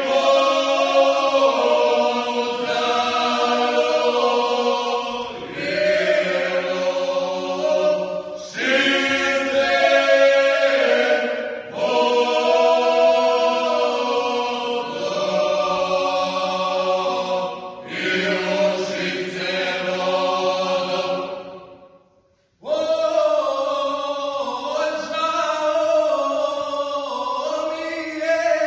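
Traditional Serbian/Bosnian male folk singing group singing unaccompanied in several voices, in long held phrases over a steady sustained note. There are short breaks between phrases, and a brief silence about 22 seconds in before the singing starts again.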